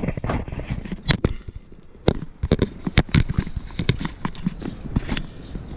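Irregular knocks, clicks and clunks as a Yamaha RD 350 motorcycle is rocked back and forth by hand, with its parts rattling and shifting. The bike is rocked to mix the bit of two-stroke oil the owner adds into the fuel in the tank.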